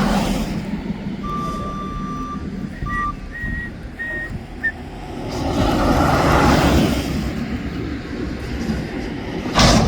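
Mack McNeilus front-loader garbage truck's diesel engine running, swelling louder for a second or two in the middle. A few thin high beeps sound in the first half, and there is a sharp bang near the end.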